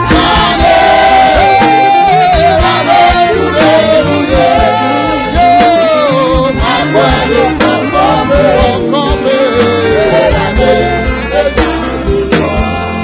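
Live gospel worship song: a singing voice carrying the melody over instrumental accompaniment with a steady beat.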